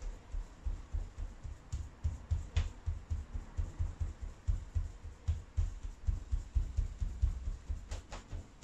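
A damp cloth dabbing and wiping over a glazed board on a workbench, making a run of dull low thumps about three or four a second, with a few light clicks.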